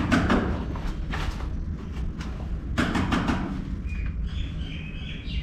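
A few shuffling, rustling bursts, then from about four seconds in a quick run of short, high chirps from small animals in the dark room.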